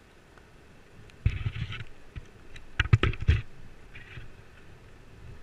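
Rustling and a quick cluster of sharp knocks close to a body-worn action camera during a rope descent: rope and abseil gear rubbing and bumping near the microphone. A short scratchy rush comes about a second in, and the knocks a couple of seconds later.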